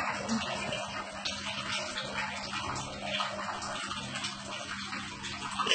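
Water running and splashing over a cat as it is washed.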